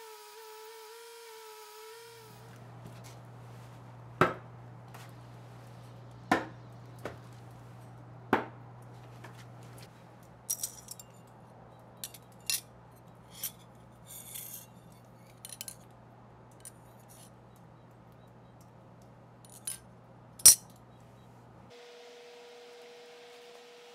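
A buffing wheel's motor hums for about two seconds. Then, over a steady low hum, come three sharp knocks about two seconds apart, a run of light metallic clicks and clinks, and one more sharp knock near the end.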